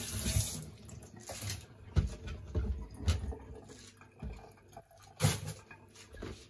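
Kitchen tap running into a stainless steel sink, shut off about half a second in. Then scattered knocks and clatter of vegetables being handled against the sink and counter, with a few sharper knocks.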